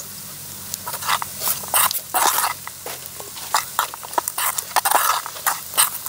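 Metal ladle stirring chunks of fried partridge meat in an aluminium pot, scraping against the pot in irregular strokes, a few a second, starting about a second in.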